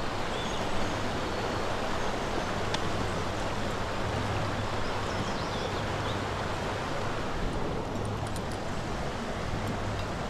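Steady rush of creek water flowing past, with a few faint clicks near the end.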